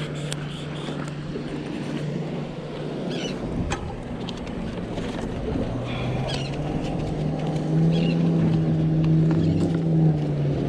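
Motorboat engine running with a steady low hum, louder for a couple of seconds near the end.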